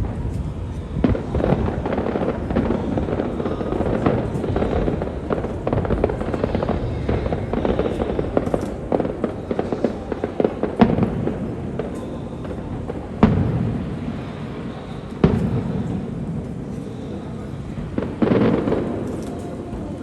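Aerial fireworks display: a dense run of crackling bursts and bangs, then sparser single booms that each die away in a rumble, about four of them in the second half.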